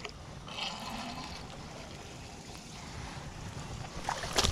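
Faint water sloshing and splashing, with low wind rumble on the microphone, while a hooked bass is played at the pond's edge; a brief soft rush of noise about a second in and a louder one near the end.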